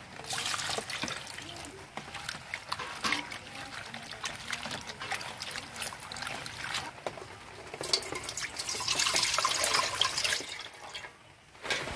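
Jute leaves being swished and rubbed by hand in a steel bowl of water, splashing and trickling. About eight seconds in, the wash water is poured off from the bowl into a pot in a louder, steady stream that stops about a second before the end.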